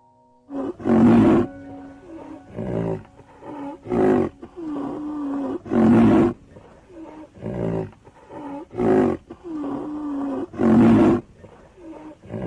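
A large animal calling loudly and repeatedly: a long, loud call about every five seconds, with shorter, weaker calls in between.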